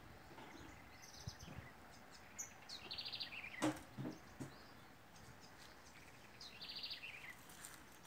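Wild birds calling in woodland: one gives a fast trill that drops in pitch at the end, twice, with a few short high chirps between. Footsteps and a sharp click about three and a half seconds in.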